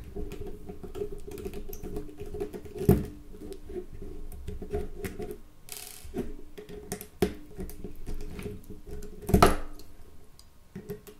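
Precision T6 Torx screwdriver backing small screws out of a Nokia 3310's keypad frame: soft irregular clicking and scraping of the bit and the handled phone, with two sharper knocks, one about three seconds in and a louder one near the end.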